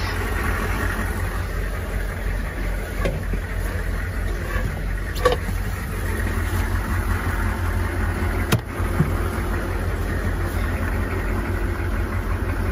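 Military truck's diesel engine idling steadily, with a couple of sharp clicks about five and eight and a half seconds in.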